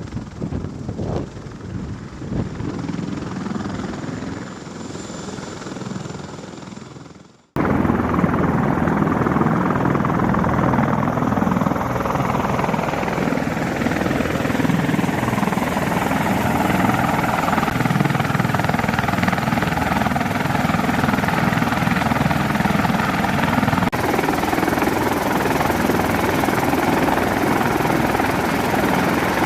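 Helicopter running, a loud, dense, steady rotor and engine noise that begins abruptly about seven seconds in. Before it there is a quieter rushing noise that fades out.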